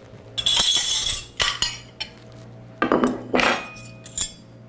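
Metal kitchen utensils clattering and clinking as a knife and cake server are picked up and handled, in several short bunches of sharp clinks.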